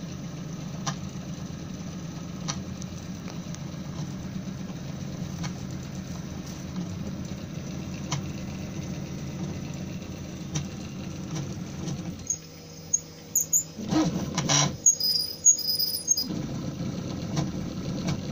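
FDM 3D printer printing, its stepper motors buzzing steadily with faint ticks. About twelve seconds in the motion changes, with a louder spell of quick high-pitched stepper whines and chirps, then the steady buzz resumes.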